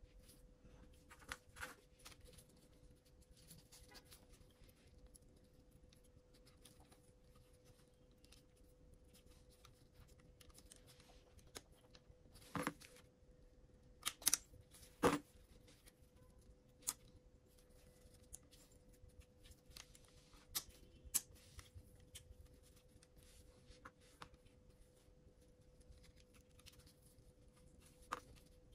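Small hand tools clicking and tapping on the small parts of a DJI Mini 3 Pro drone gimbal during repair. The clicks are scattered and sharp, with the loudest cluster about halfway through, over a faint steady hum.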